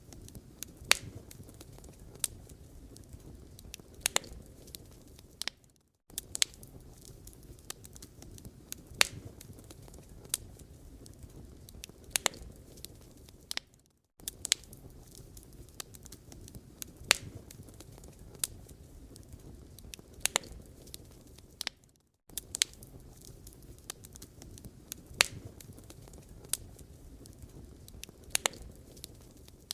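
Wood fire crackling in a fireplace: irregular sharp pops and snaps over a low, steady rumble of burning. The sound drops out briefly about every eight seconds.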